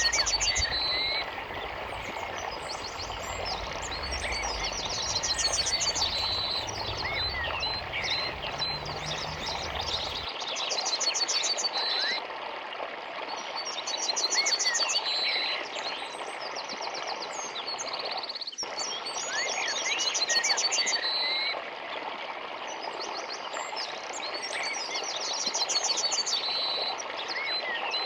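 Several birds chirping and singing over the steady rush of a small forest stream, with one bird repeating a fast, high trill every few seconds.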